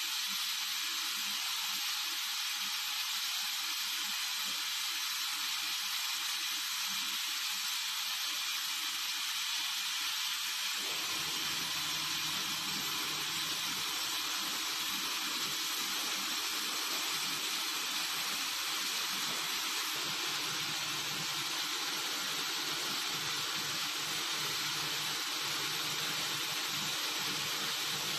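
Spiral tube pipe welding machine running as it forms and seams a steel pipe: a steady hiss, with a low machine hum joining abruptly about eleven seconds in.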